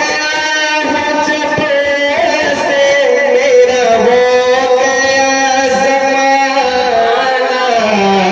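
A man singing a naat into a microphone in long, drawn-out notes that waver slightly, the melody sinking lower near the end.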